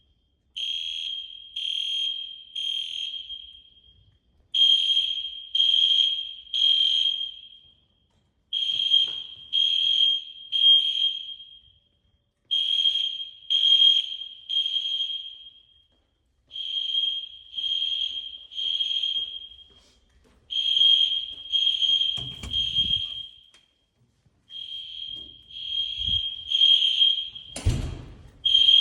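Fire alarm sounding a steady high tone in the temporal-three evacuation pattern: three half-second pulses, a pause, then three more, repeating about every four seconds. Two knocks break in, one a little past the middle and a louder one near the end.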